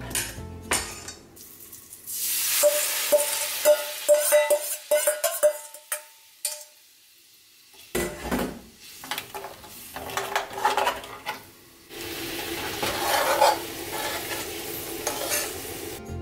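A spoon stirring soy-based sauce in a stainless steel bowl, scraping and clinking with a ringing metallic tone. After a short quiet gap, a spoon taps and scrapes in a frying pan of the sauce with melting butter, and about twelve seconds in a steady sizzle sets in.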